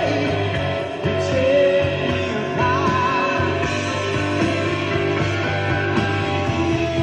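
Rock music with a singing voice and guitar.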